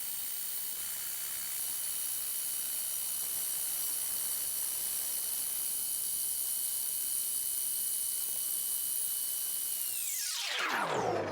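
Lathe running with a high-pitched motor whine while a between-centres boring bar cuts the bore of a cast-iron casting. About ten seconds in, the whine glides down as the lathe spins to a stop.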